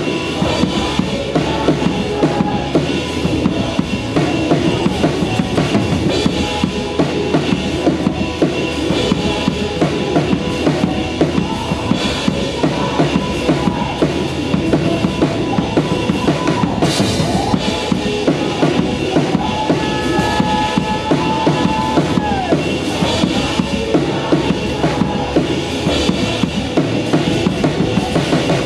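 Drum kit played live with a steady, driving beat of kick drum, snare and cymbals, heard from right beside the kit, with the rest of the worship band playing underneath.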